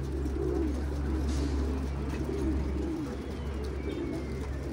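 A flock of domestic pigeons cooing, with many low calls overlapping, over a steady low rumble that weakens about three seconds in.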